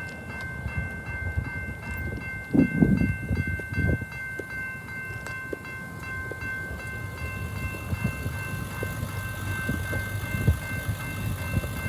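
Level crossing's electronic warning bell ringing as a steady high tone, just activated for an approaching train. Wind buffets the microphone in gusts, strongest a few seconds in.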